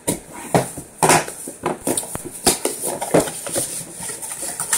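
Cardboard shipping box being cut open with a folding pocket knife and handled: a busy, irregular run of scrapes, clicks and knocks.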